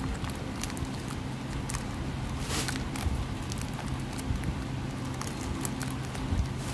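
Hands handling packing materials and small items: scattered light clicks and taps, with a brief rustle about two and a half seconds in, over a steady low hum.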